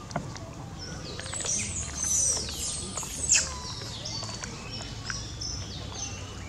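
A flurry of high-pitched chirping and whistling animal calls, many short falling notes overlapping, loudest around two and three and a half seconds in, then thinning to scattered chirps.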